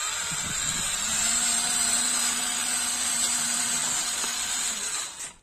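Small electric motor and gears of a homemade RC truck whirring: a steady hum over a hiss, starting about a second in and stopping near the end.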